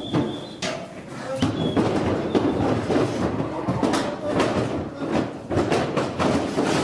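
Cattle hooves clattering and knocking on a livestock trailer's ramp as a group of cows walks down it, many irregular hoof strikes close together.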